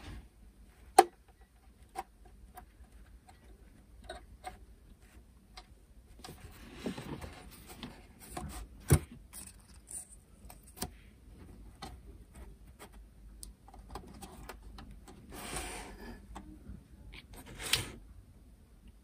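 Small hobby tools and plastic model parts being handled on a workbench: scattered light clicks and taps, the sharpest about a second in, with two short stretches of scraping.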